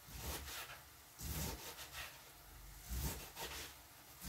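Kitchen knife cutting cabbage on a cutting board: three separate bursts of cutting, each with a low knock of the blade on the board.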